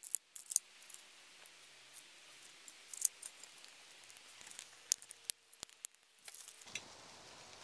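Scattered light clicks and taps of small split kindling sticks being handled and set into a homemade tin-can wood stove, the sharpest about three seconds in and about five seconds in.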